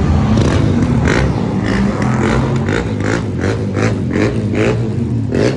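Car engines rumbling in a street crowd, with a string of short loud noises about two a second over them.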